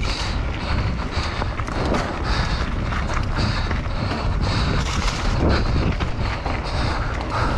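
Wind buffeting the camera microphone and mountain-bike tyres rolling fast over dry dirt singletrack, with the bike rattling over small bumps. A short hiss repeats about twice a second throughout.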